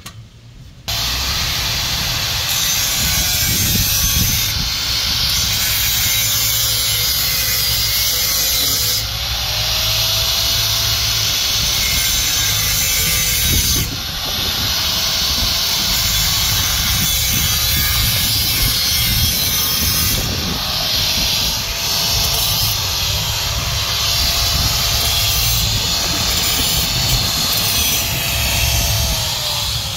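Angle grinder cutting through a steel exhaust pipe: a loud, steady cutting hiss over the motor's whine, which sags in pitch and recovers several times as the disc bites. It starts about a second in.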